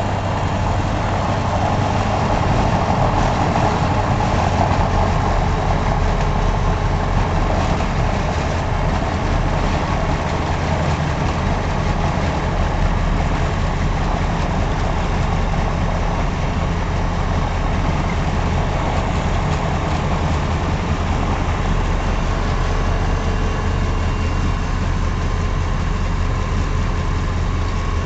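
Diamond DV20 Katana's Rotax 912 four-cylinder engine and propeller running steadily at low taxiing power, heard from inside the cockpit, with a constant low drone.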